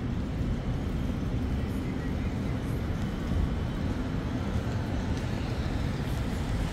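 Downtown street ambience: a steady low rumble of traffic, with faint voices of passers-by.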